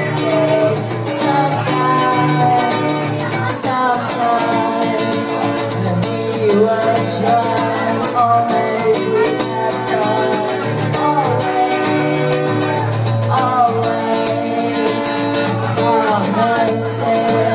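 A woman singing live into a microphone, accompanied by acoustic guitar.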